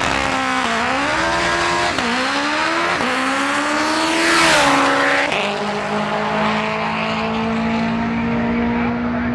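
Turbocharged 2.2-litre Honda K-series four-cylinder at full throttle on a drag-strip pass, revving up through the gears with three quick shifts about a second apart. It passes close with a loud rush, then its pitch drops and holds steady as it pulls away down the track.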